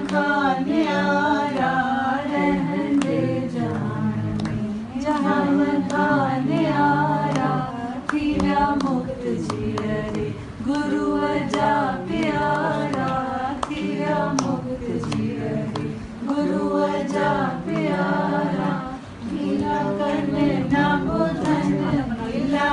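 A group of voices singing a devotional song together, without instruments, in sung phrases of a few seconds each with short pauses between.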